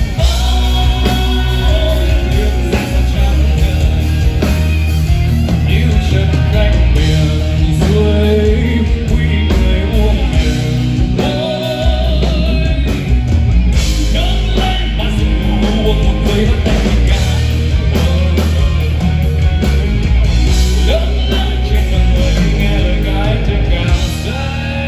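A rock band playing live, with electric guitar, bass and drums and a sung melody over them; the music drops in loudness just before the end.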